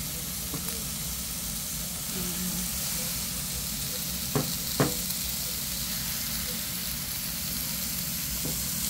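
Stuffed lobster tails and bacon sizzling on the grate of an electric smokeless grill: a steady hiss with a low hum underneath. Two short clicks come about four and a half seconds in.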